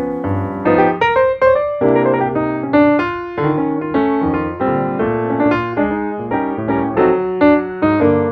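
Background piano music: a steady run of struck notes in a lively melody.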